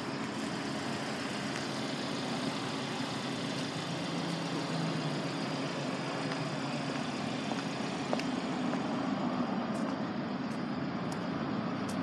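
Steady low hum of outdoor background noise, like an idling vehicle engine, with a few faint ticks in the last couple of seconds.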